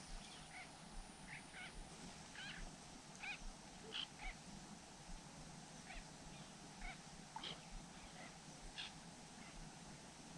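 Faint, short, high-pitched animal calls, about twenty of them scattered irregularly, over a steady low hum.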